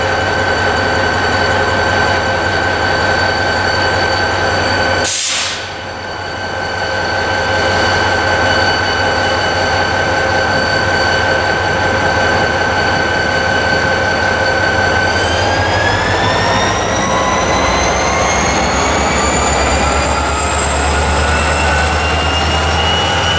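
Illinois Central diesel-electric locomotive's engine running at a steady low throttle with a high whine, then from about two-thirds of the way through rising steadily in pitch and growing heavier as it throttles up, pulling covered hoppers at a crawl. A brief hiss with a momentary drop in sound comes about five seconds in.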